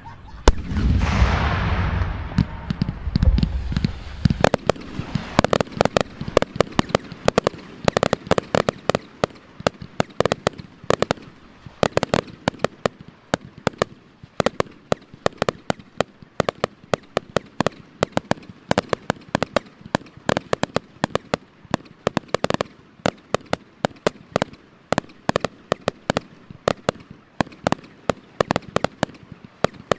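Fireworks display: a loud bang about half a second in, a few seconds of dense rumbling bursts, then a long run of sharp irregular pops and crackles, several a second.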